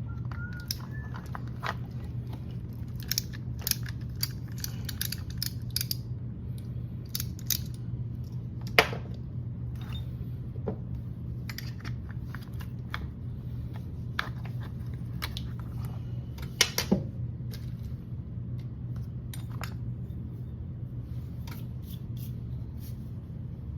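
Small metal parts and tools being handled: scattered clicks and light rattles over a steady low hum, with the sharpest clicks about a third and two thirds of the way through.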